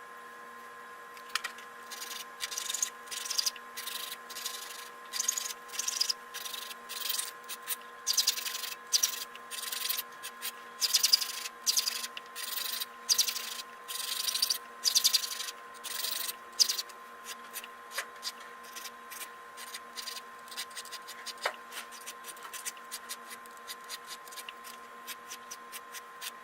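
Short rasping strokes of hand filing on a ring's metal, about one or two a second, stopping after about fifteen seconds, with only a few faint clicks afterwards. A steady electrical hum runs underneath.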